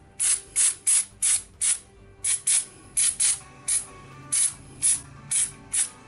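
Aerosol can of rust-inhibitor spray squirted in about fourteen quick short hissing bursts, roughly three a second, with a brief pause about two seconds in.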